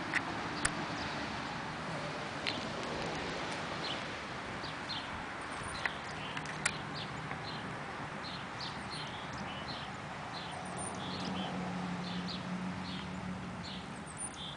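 Small birds chirping in short, repeated high notes, with a few sharp clicks in the first half and a low steady hum underneath that swells for a couple of seconds late on.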